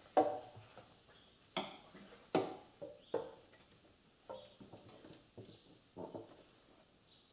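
A string of about seven sharp metallic knocks and clunks, some with a short ring. They come from the motorcycle frame and engine being shifted and handled to bring the mounting holes into line.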